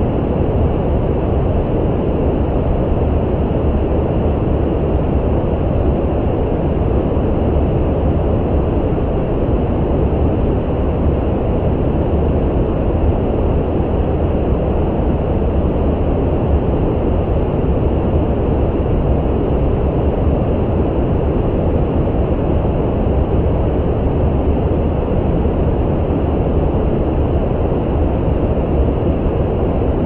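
Steady brown noise: an even, deep rumble-like hiss, strongest in the low end and fading toward the top, with no change throughout.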